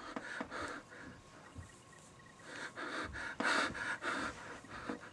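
A person breathing hard in a series of short, breathy puffs, with a pause of a second or so in the middle.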